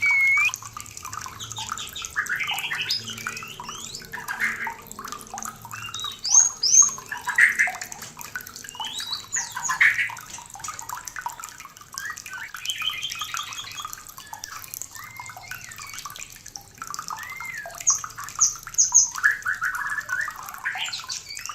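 White-rumped shama in breeding condition singing a rapid, varied song of clear whistles, slurs and chattering phrases, over a steady background of trickling water.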